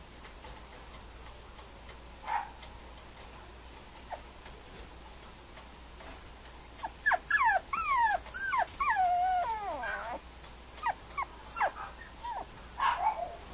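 Mame shiba puppy whimpering: a quick run of short, high cries, each falling in pitch, beginning about seven seconds in, with one longer whine, then a few more short cries near the end.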